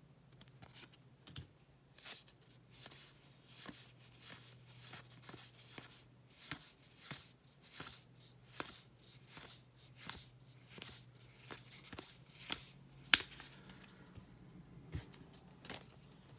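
A stack of cardboard trading cards being flipped through by hand, one card slid from the front to the back about twice a second, each making a soft swish. A sharp click comes about 13 seconds in.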